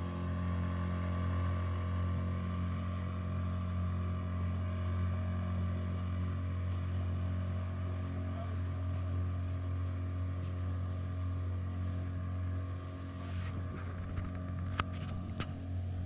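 A motorboat engine running with a steady low hum, easing off a little near the end. A few light clicks come near the end.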